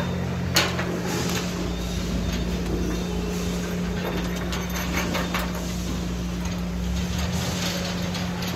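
Aluminium-alloy carport beams being handled and fitted together by hand, with a couple of sharp metal knocks about half a second in and fainter ticks later, over a steady low hum.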